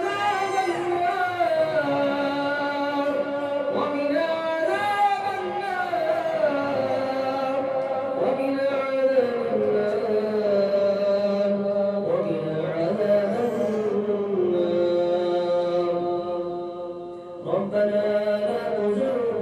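A single voice chanting in long, held notes that slide slowly between pitches, with a short pause about three-quarters of the way through.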